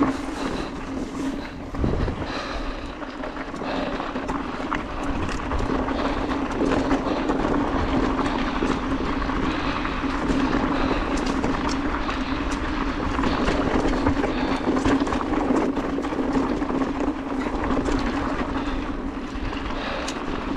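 Specialized Turbo Levo e-mountain bike rolling downhill on a rough dirt and stony singletrack: tyres on the ground and the bike rattling, with many small clicks and a steady buzz throughout.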